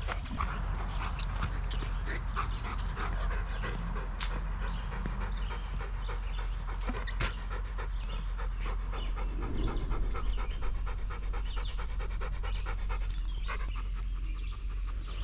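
Yellow Labrador retriever panting steadily and rhythmically, winded from running after its toy, with a ring toy held in its mouth.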